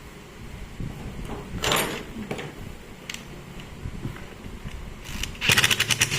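Light knocks and scrapes of parts being handled, then about five seconds in a small power tool starts up with a rapid, even pulsing.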